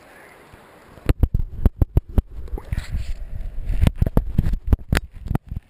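Water splashing and sloshing against a camera held at the river's surface, with a rapid, uneven run of loud knocks and thumps. It starts about a second in and stops just before the end.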